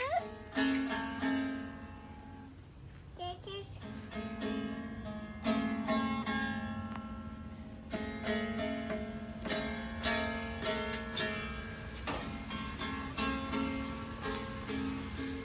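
Background music on a plucked string instrument, guitar-like, playing picked notes and chords.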